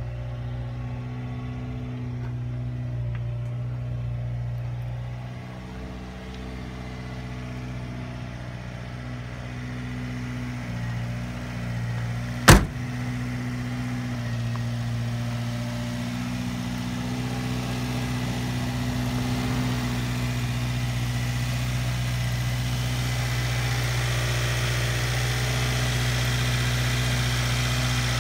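1996 Subaru Sambar kei truck's four-cylinder engine idling steadily, with one sharp knock about twelve seconds in.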